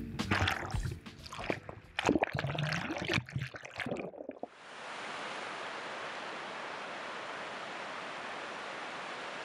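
Water splashing and sloshing around a waterproof action camera at the surface of the sea for about four seconds. The sound then changes abruptly to a steady, even rushing hiss of surf breaking on the shore.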